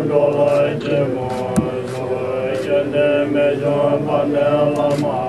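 Voices chanting a Tibetan Buddhist mantra in long held notes that shift pitch every second or so.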